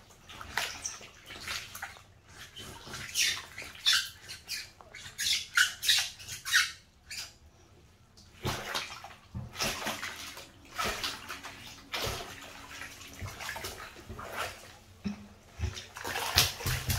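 Bathwater sloshing and splashing in a tub as feet in wet Nike Air Max trainers kick and rub through bubble bath, with short squeaks of wet trainer rubber against the bath. There is a brief lull about seven seconds in.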